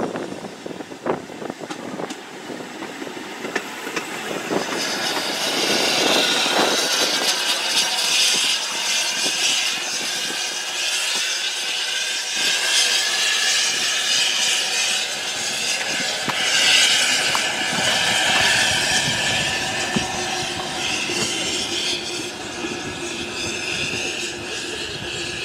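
Narrow-gauge steam locomotive Palmerston, an 1864 George England 0-4-0 saddle tank: a few clicks of its wheels over the rail joints in the first seconds, then a long, loud hiss of steam escaping from the engine while it stands at the platform.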